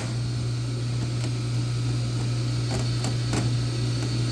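Steady low hum from shop equipment, with a few faint light clicks of transmission clutch plates and parts being handled.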